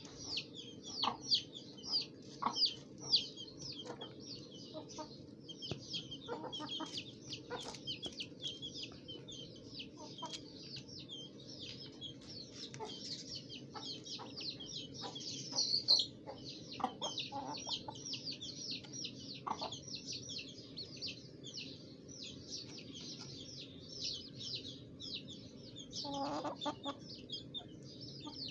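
Aseel chickens clucking in short calls now and then, over constant fast, high-pitched chirping, with a louder run of clucks near the end.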